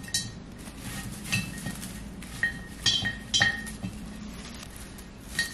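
Olive branch stems knocking against a ceramic vase as they are set in and arranged. There are about six light clinks, each with a short ring from the vase.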